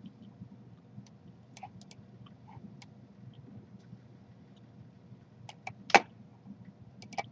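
Scattered light clicks of a computer mouse and keys over a low steady hum, with one much louder sharp click about six seconds in and another near the end.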